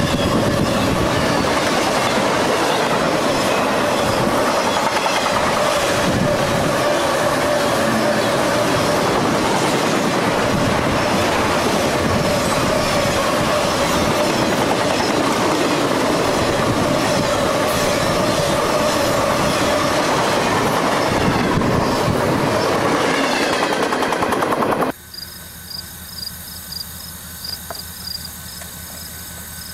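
Intermodal freight train of trailers on flatcars rolling past close by: loud, steady wheel-on-rail noise with a squealing tone from the wheels. It cuts off abruptly about 25 seconds in, giving way to a much quieter, distant rumble.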